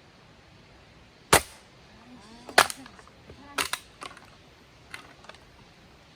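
A series of sharp, hard knocks or clacks. The loudest comes a little over a second in, two more strong ones follow about a second apart, and a few fainter ones come near the end.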